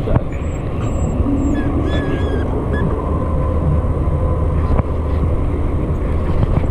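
Steady low motor rumble, with a few brief high squeaks about one and a half to two and a half seconds in.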